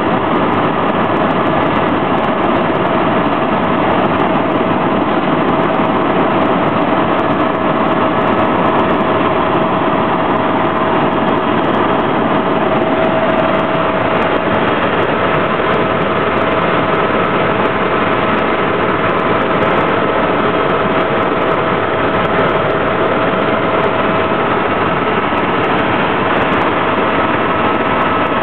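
Helicopter in flight heard from inside the cabin: a loud, steady drone of engine and rotor with a steady whine over it.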